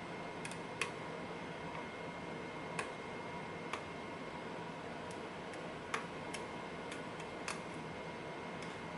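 Pin-tumbler lock being single-pin picked: small, sharp metallic clicks of the pick working the pins, about a dozen at irregular intervals, over a steady hiss.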